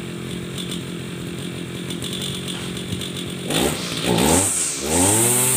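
Husqvarna backpack brush cutter engine running with a rough note, then revved up in short bursts about three and a half seconds in, the pitch climbing and dropping with each blip. This is a test run on a freshly fitted clutch and clutch drum; the owner calls the rough sound a typical weakness of Husqvarna engines.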